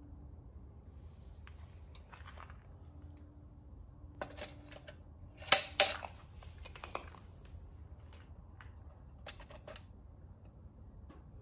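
Metal hurricane lantern set down and handled on a slatted wooden table: a few light clicks and clinks, then two sharp knocks close together about halfway through as it lands, followed by more small clicks.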